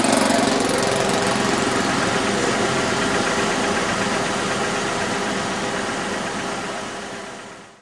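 Engine of an RC Goldberg Ultimate aerobatic model biplane running steadily, fading out near the end.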